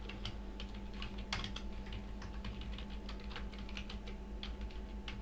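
Computer keyboard keys clicking in quick, irregular runs of typing, over a low steady hum.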